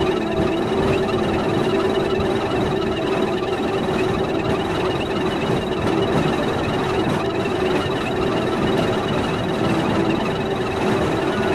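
Experimental film soundtrack played in reverse: a dense, steady drone of grinding noise with a low held tone and a high held tone, unchanging throughout.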